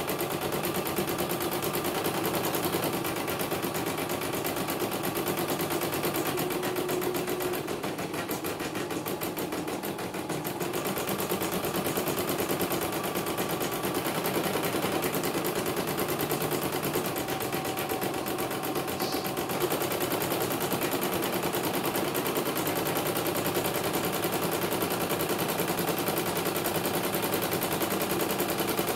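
CNY portable computerized embroidery machine stitching a design, running continuously with a rapid, even clatter of needle strokes.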